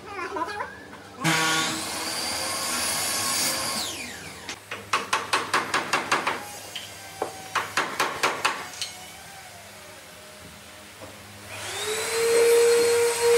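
Electric woodworking power tools. A motor runs for a few seconds, then comes a quick series of sharp knocks, about three a second. Near the end a motor spins up to a steady high whine, the loudest part.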